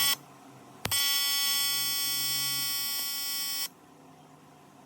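TIG welding arc on aluminium pipe buzzing steadily for nearly three seconds as a corner is tacked, with a sharp click as the arc strikes and a sudden cut-off; a brief burst of arc right at the start.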